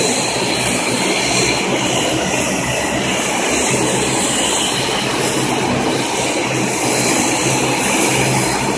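Twin turboprop engines of a De Havilland Canada Dash 8-400 running steadily as the airliner taxis, a loud even propeller and engine drone.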